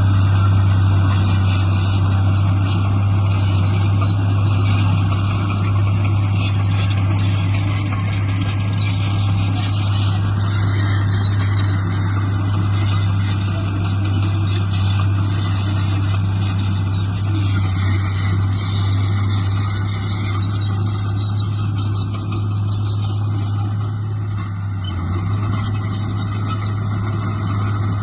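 Heavy earthmoving machinery's diesel engine running steadily, with a continuous low drone.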